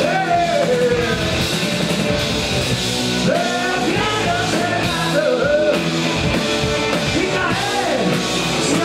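Rock band playing live: a male lead singer over electric guitars and drums.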